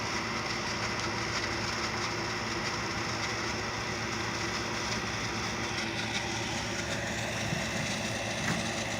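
A steady mechanical hum, like a motor or engine running at idle.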